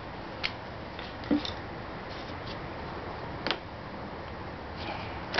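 A few light plastic clicks and one duller knock as the scooter's air filter element in its plastic frame is handled and turned over, over a steady background hiss.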